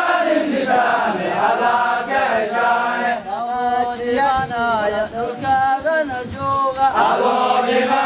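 Male voices chanting in a sung melody, long held notes bending up and down over a steady low tone.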